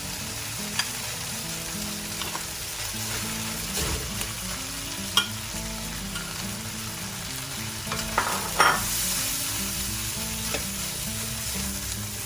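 Cooked rice and marinated chicken sizzling in an oiled wok as they are stirred together, with the utensil scraping and knocking against the wok several times, most sharply about eight seconds in.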